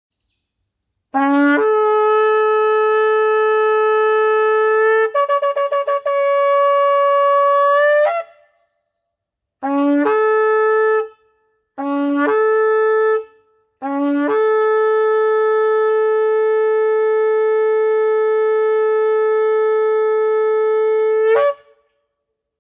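Kudu-horn shofar blown in a series of blasts, each starting on a brief low note that jumps up to a held higher one. First comes a long blast that wavers rapidly partway through and steps up to a higher pitch, ending with a short squeal. Two short blasts follow, then a long steady blast held about seven seconds.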